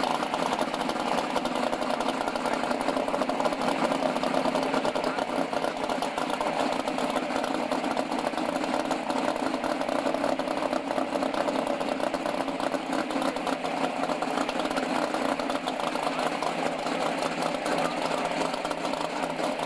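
Drag car engine idling steadily, a fast, even pulsing with no revving.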